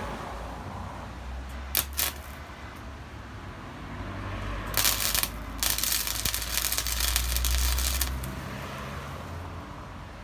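Sealey Mighty MIG100 flux-core MIG welder arc crackling in short tack-weld bursts. There are two brief zaps about two seconds in, then a half-second burst, then a longer burst of about two and a half seconds, the loudest, around the middle. A steady low rumble runs underneath.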